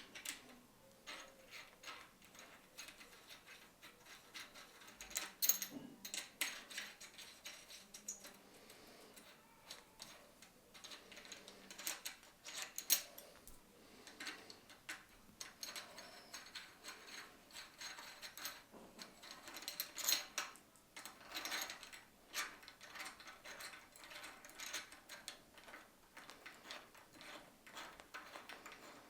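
Irregular clicks, taps and light rattles of tools and metal scooter parts being handled during assembly of an electric scooter, with a few sharper knocks.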